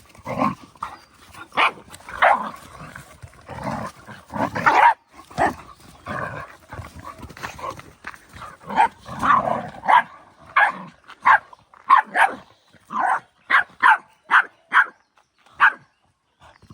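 An animal calling in short, sharp cries, irregular at first, then a quick regular run of about two a second in the second half.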